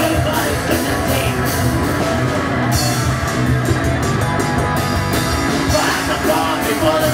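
A punk/metal band playing live and loud: electric guitar over a drum kit with regular cymbal hits. The cymbals turn into a denser wash for about two seconds in the middle.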